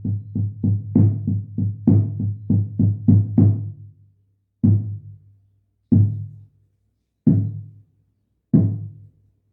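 Double-headed Cherokee shamanic frame drum without beads inside, giving a deep, muffled tone, struck in a steady beat of about three strokes a second. After about three and a half seconds it slows to four single strokes, each left to ring out and fade.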